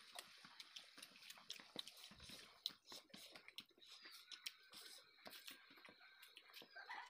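Close-up eating sounds: chewing and lip smacking, with small irregular clicks and squelches of rice being mixed by hand on a plate. The sharpest click comes about two and a half seconds in.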